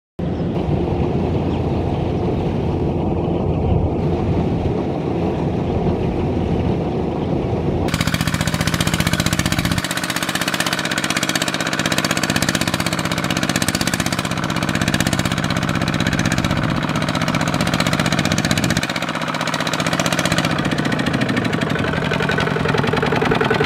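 Single-cylinder diesel engine of a two-wheel walking tractor running hard and chugging as it pulls a loaded trailer of rice sacks through deep mud. The sound changes abruptly about eight seconds in.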